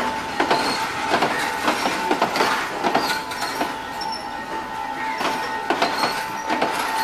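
Passenger coaches of a train rolling past, their wheels clacking over the rail joints again and again, with a steady high-pitched squeal from the wheels on the rails.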